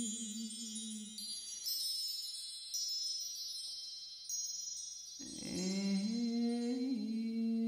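Music: chimes ringing in high, shifting tones over a low hummed drone. The drone fades about a second in, and the voice comes back in about five seconds in, sliding up into a held note.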